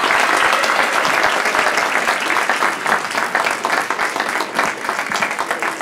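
Audience applauding, dense at first and slowly thinning toward separate claps near the end.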